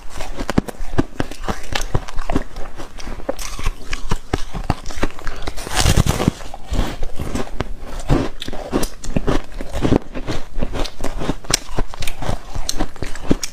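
Blue-dyed frozen ice crunching close to the microphone: a hard bite into the block about six seconds in is the loudest moment, with sharp crackling crunches of ice being chewed throughout.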